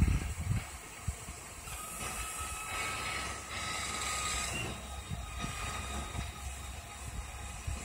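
Tow truck engine running at low speed, with a hiss lasting about three seconds in the middle.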